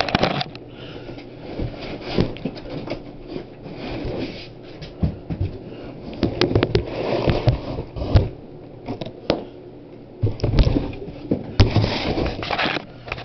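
Cardboard box being handled and opened and a heavy inverter pulled out of it: irregular rustling and scraping of cardboard with scattered knocks, and the heaviest thumps come about ten to twelve seconds in.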